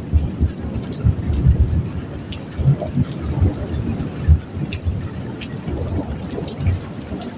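Heavy rain and running rainwater, with irregular low thuds and scattered light dripping ticks over a steady wash of noise.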